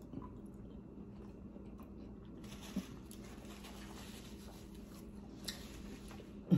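Close-up soft chewing of a juicy orange slice with sour cream. From about two and a half seconds in, a paper napkin rustles against the mouth for a few seconds. A low steady hum runs underneath.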